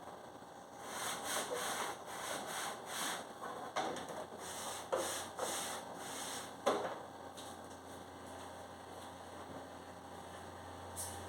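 Rhythmic scrubbing strokes, about two or three a second, rubbing a refrigerator part clean, with a single knock midway.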